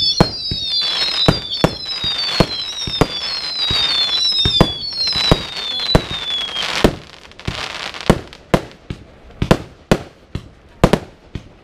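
Fireworks going off: several whistles overlap, each falling in pitch, over the first six or seven seconds, mixed with sharp bangs. After that comes a string of loud bangs and pops, a couple a second, at uneven spacing.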